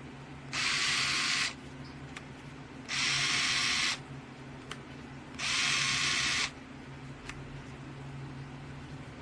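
HOTO 3.6 V cordless electric screwdriver's motor run three times in short bursts of about a second each, starting and stopping abruptly.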